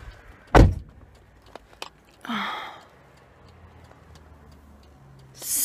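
A sharp, loud thump about half a second in, then a woman's heavy sigh about two seconds later, with faint ticks and a low hum underneath.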